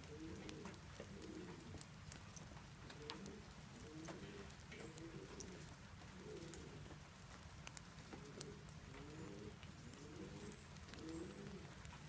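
Pigeon cooing faintly in the background, a long run of short repeated coos with a brief pause about midway.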